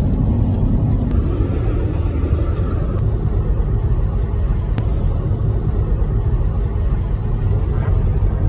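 Steady low rumble of a moving car, with road and engine noise heard from inside the cabin.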